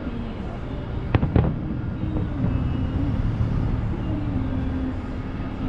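Aerial fireworks shells bursting: a quick run of three sharp bangs about a second in, over a continuous low rumble of further bursts.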